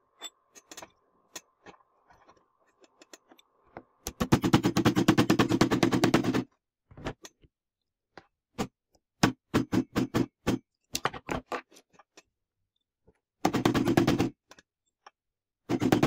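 Hammer tapping a new ball bearing onto a vacuum cleaner motor's armature shaft through a metal drift: quick runs of sharp metallic taps, with single knocks between them.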